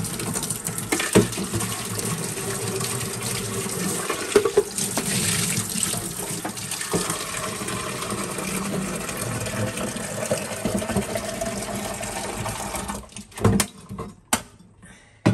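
Kitchen tap running water into an espresso machine's removable water tank as it is rinsed, steady and splashing. The water shuts off about 13 seconds in, followed by a few knocks.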